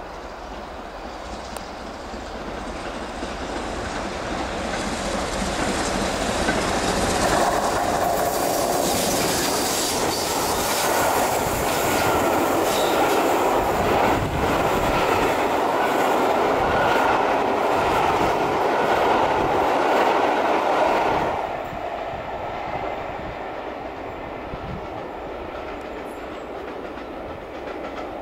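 Steam-hauled passenger train, BR Standard Class 7 'Britannia' Pacific 70000 with its coaches, passing at speed. The noise builds as it approaches, the coach wheels clatter loudly over the rail joints as they go by, then the noise drops suddenly after about twenty seconds as the last coach passes and the train fades into the distance.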